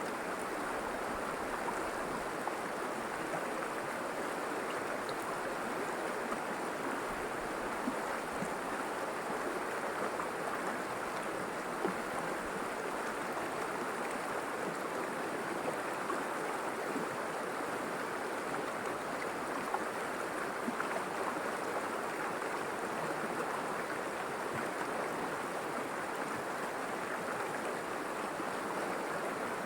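River water rushing and splashing steadily over rocks, with small droplet splashes and plinks here and there.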